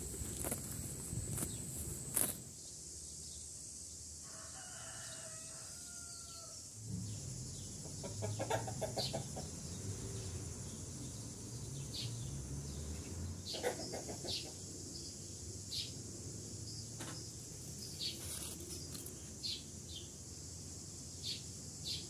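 A rooster crows once about four seconds in, and hens cluck in short runs after it, over a steady high insect drone. In the first two seconds there is crisp tearing and crunching from a cow cropping grass.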